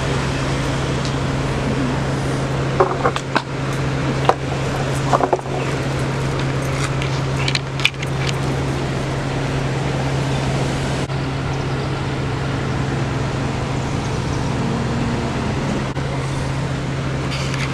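Steady low hum of idling vehicle engines, with a handful of short sharp knocks in the first half.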